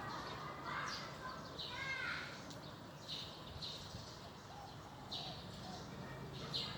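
Birds calling, with short high chirps repeating at uneven intervals and a few arching calls in the first couple of seconds.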